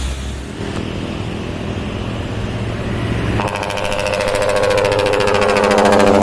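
Heavy dump truck's diesel engine running, then about three and a half seconds in a ship-style multi-trumpet air horn starts and holds a loud chord of several tones.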